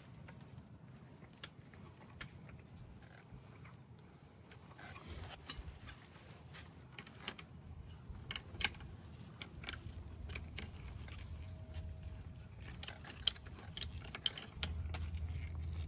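A truck bottle jack being let down under a tracked stump grinder: faint scattered metallic clicks and ticks, growing more frequent as the machine settles, with a low rumble coming in near the end.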